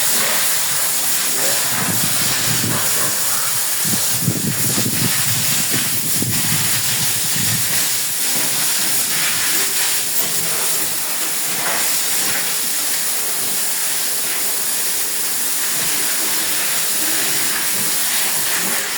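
Water hose spraying a steady hissing jet while pigs are washed down.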